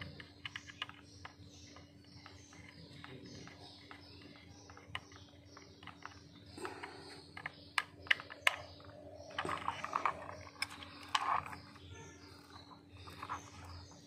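Small screwdriver clicking and scraping on the terminal screws of a flow meter's opened plastic electronics housing, with handling knocks and rustles; the sharpest clicks come a little past the middle. A steady low hum and faint, rapidly repeated high chirps run underneath.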